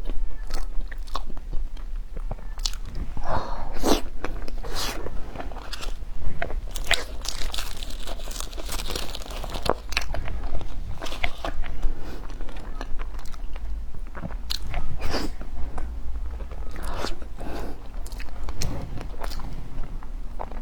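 Crunchy food being bitten and chewed, with repeated sharp crunches all through.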